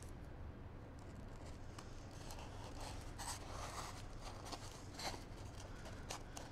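Faint rubbing and light scraping with a few small clicks: masking tape being pressed and smoothed onto a blue foam block to make a hinge.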